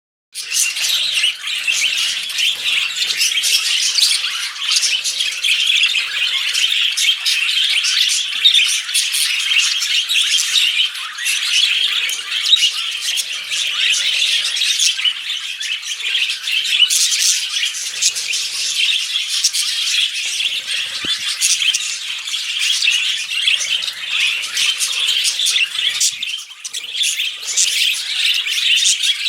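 Budgerigars chattering and warbling nonstop, a dense stream of high chirps, squeaks and quick clicks.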